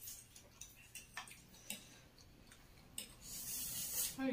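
Forks clicking now and then against plates of food, then a loud slurp of spicy noodles lasting about a second near the end.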